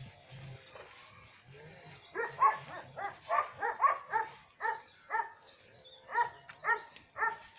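A dog barking repeatedly, about two short barks a second, starting about two seconds in.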